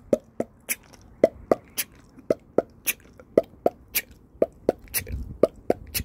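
Mouth clicks made with the tongue in a beatbox-style rhythm. They come in repeating groups of three quick clicks about once a second, and the third click of each group is sharper.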